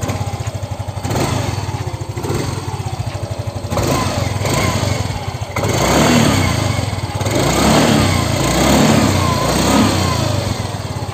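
Yamaha Mio i 125 scooter's single-cylinder four-stroke engine running with a new ignition coil and spark plug cap fitted, smooth and with little vibration. It idles steadily at first. From about halfway through, the throttle is blipped and the revs rise and fall about four times.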